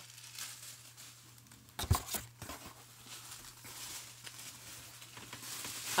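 Packing paper and a cardboard box being handled: faint rustling, with a couple of sharp knocks about two seconds in, over a steady low hum.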